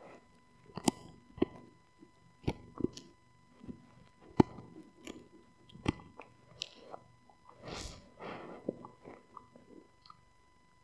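A husky gnawing a rawhide-style chew bone: irregular sharp cracks of teeth biting into the hard chew, about one a second, with softer chewing between. The chewing dies down near the end.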